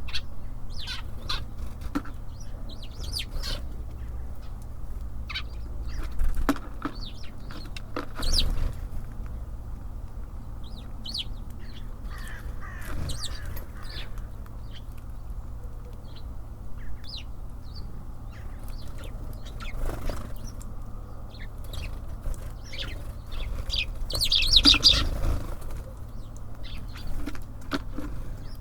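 Small songbirds at a feeder: quick wing flutters as they land and leave, sharp pecking and clicking, and brief high chirps, with a louder flurry near the end. A steady low rumble runs underneath.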